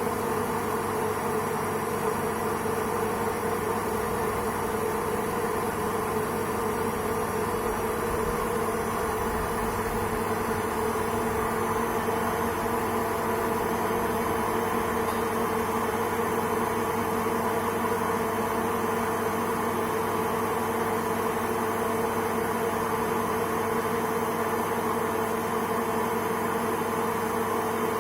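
Indesit automatic washing machine running, its motor and drum giving a steady hum with a constant whine.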